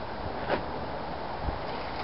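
Steady outdoor background hiss, with a short sharp click about half a second in and a soft low thump near the end.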